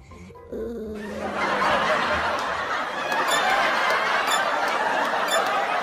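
Several people laughing continuously, dropping out for about half a second at the start.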